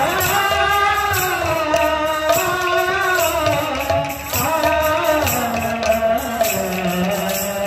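Kirtan music: a voice holds long notes that bend slowly up and down, over steady strokes on barrel drums and the jingle of small hand cymbals.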